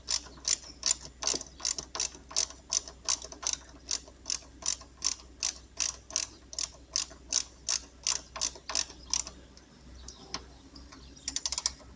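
Ratchet wrench clicking evenly, about three clicks a second, as a 10 mm nut is run down on the chassis ground point. The clicking stops about nine seconds in, followed by one more click and a short quick run of clicks near the end.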